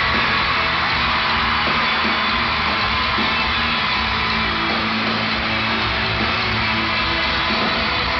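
Live pop-rock band playing with electric guitar in a large arena, heard from the stands over a crowd of fans screaming and cheering; the sound is loud and steady.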